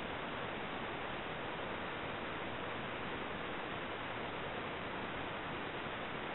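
Steady, even hiss with no change in level and no distinct events, like the electronic noise of a small camera's microphone; no animal sound stands out.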